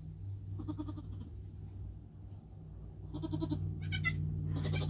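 Nigerian Dwarf goat bleating at a birth: a short call about half a second in, then several quick calls from about three seconds in.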